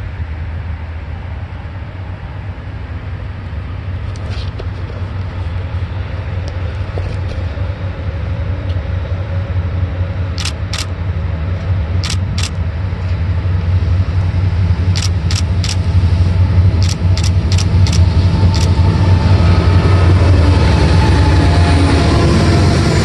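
Norfolk Southern diesel locomotive hauling a double-stack container train as it approaches: a steady low engine rumble that grows louder as it nears, with a few sharp ticks through the middle and a faint whine joining near the end as the locomotive passes.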